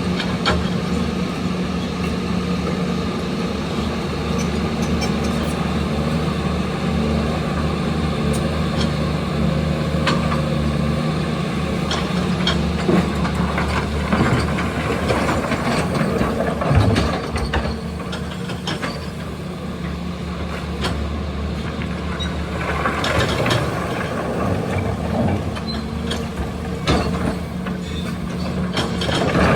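Large hydraulic excavator's diesel engine running steadily while digging, with scattered metallic clanks and rattles from the bucket and linkage.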